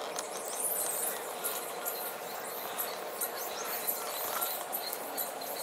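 Many small clicks and rustles of a tree saddle's tether rope and climbing gear being handled against the tree trunk.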